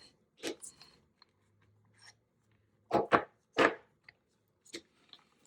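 A few sharp clicks and scrapes of a screwdriver and plastic and metal parts being handled while prying apart a model locomotive's shell and chassis. The loudest come as a close pair about three seconds in.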